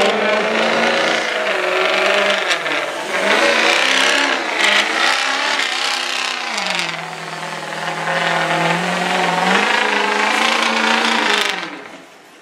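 Diesel pickup truck engine at full throttle hauling a weight-transfer pulling sled, a loud sustained note whose pitch wavers, sags for a couple of seconds past the middle as the engine bogs under the load, then climbs again. The sound stops abruptly near the end.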